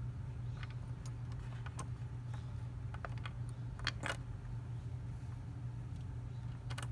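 Light, irregular clicks and taps of hands handling a plastic windshield and its metal mounting bracket hardware, the sharpest click about four seconds in, over a steady low hum.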